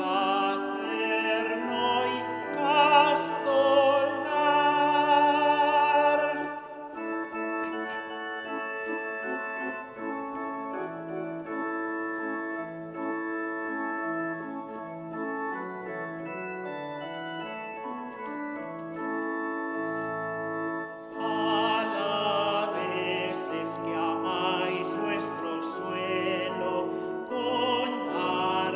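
A priest sings a solemn hymn solo with vibrato to organ accompaniment. About seven seconds in the voice stops and the organ plays an interlude alone, and the singing comes back in about twenty-one seconds in.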